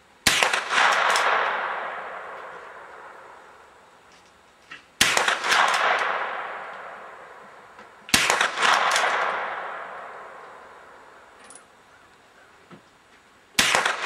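Four .22 LR rifle shots from a Remington 572 pump-action rifle, a few seconds apart. Each shot trails off slowly over a second or two.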